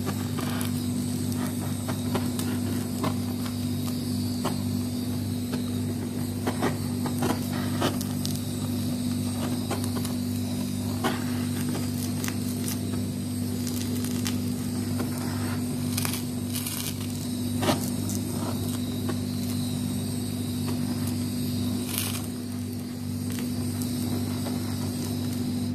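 Handheld butane kitchen blowtorch hissing as its flame singes the feather stubble off raw chicken skin, over a steady low hum, with a few scattered clicks and taps.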